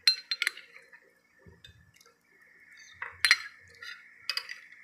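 Metal spoon clinking and scraping against a ceramic plate while scooping stew: a few sharp clinks at the start, more about three seconds in, and again near the end.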